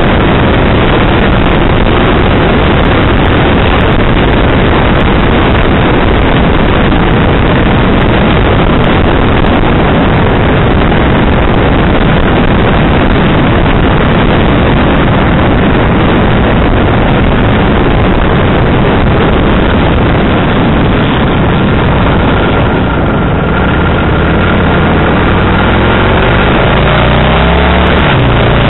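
Kawasaki VN1500 V-twin motorcycle riding at road speed, with a loud, steady rush of wind on a microphone mounted low on the bike, the engine running underneath. In the last few seconds the engine's pitch rises and shifts.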